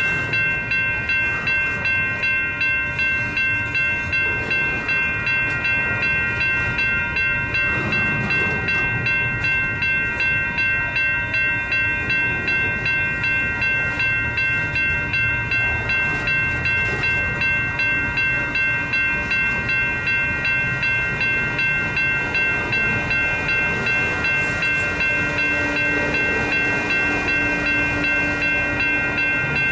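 Double-stack intermodal container cars of a Union Pacific freight train rolling slowly past, their wheels rumbling and clattering on street-running track. Over it a grade-crossing bell dings steadily, about twice a second.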